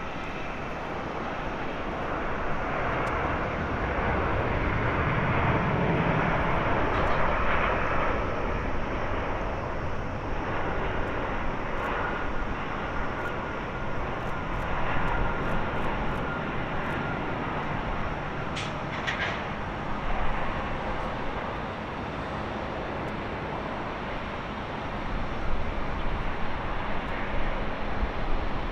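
Airbus A350-900 landing rollout: its Rolls-Royce Trent XWB engines run in reverse thrust and swell to a loud jet rush a few seconds in, then settle to a steadier roar as the airliner slows on the runway.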